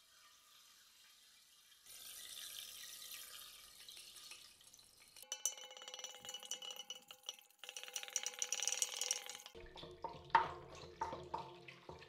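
Faint fizzing crackle of white powder sinking and dissolving in a tall glass cylinder of water, starting about two seconds in. A few light clinks and knocks follow near the end.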